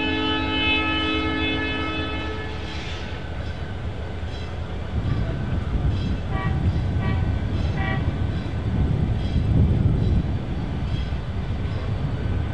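Diesel locomotive's multi-note air horn holding a chord that cuts off about two seconds in, followed by the low rumble of the train building up, with three short ringing notes a little past the middle.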